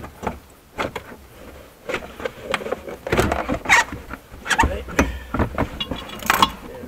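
Lexus IS200t luggage compartment side trim panel being pulled and flexed aside by hand: irregular rustling scrapes, clicks and knocks, busiest from about three seconds in.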